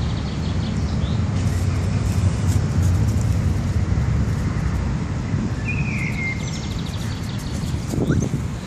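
Outdoor ambience of a steady low rumble, with birds chirping faintly over it and one clearer chirp about six seconds in. A brief louder sound comes near the end.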